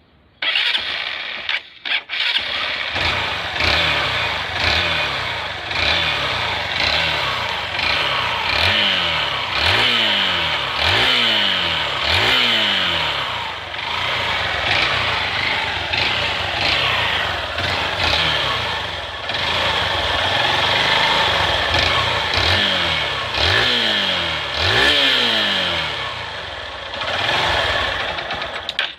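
Honda CG Titan 150 single-cylinder four-stroke motorcycle engine starting about half a second in, then revved over and over in short throttle blips, its pitch rising and falling about once a second. The owner is showing an odd noise from the bike that he cannot explain.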